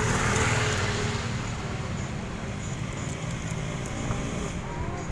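Bus engine and road noise, swelling during the first second. Near the end a thin high horn tone starts up.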